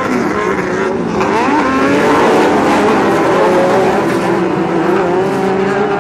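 Several off-road race trucks' engines running hard at high revs, overlapping. One pitch climbs sharply about a second in as a truck accelerates, then several hold fairly steady.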